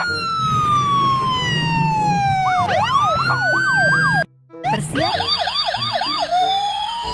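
Electronic police siren sounding, switching between fast yelping sweeps and a slower wail that falls steadily for a couple of seconds, cutting out for a moment about four seconds in before the yelp resumes.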